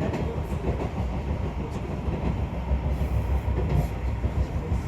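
Izu Kyuko Kurofune train running, heard from inside the carriage: a steady low rumble with a few faint clicks from the wheels and track.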